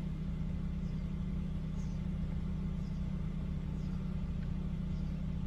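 Steady low hum inside a BMW E60's cabin, even and unchanging, with no other event.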